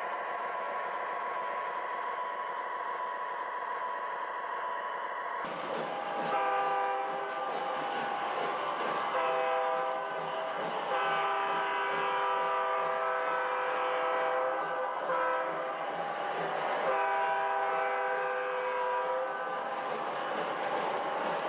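Sound system of an MTH O gauge GP40 diesel model playing a steady diesel engine drone. About five seconds in, its multi-chime air horn starts and sounds several long blasts with short gaps between them.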